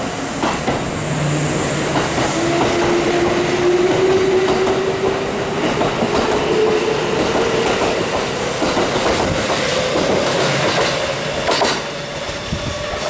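Kintetsu 2430-series electric train pulling out, its traction motors whining in a slowly rising pitch as it gathers speed, with wheels clattering over rail joints. A sharp knock near the end.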